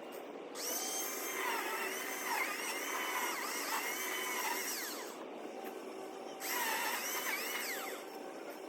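Chainsaw run twice at high revs, its whine wavering as the chain takes load and falling away as the throttle is released at the end of each run; the first run lasts about four seconds, the second about a second and a half.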